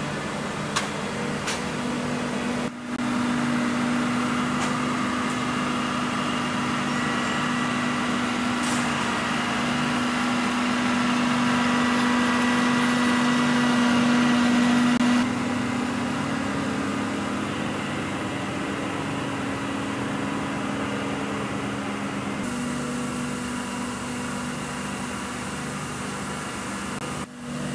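Engine of an aircraft tow vehicle running steadily with a low droning hum, shifting abruptly in level a few times.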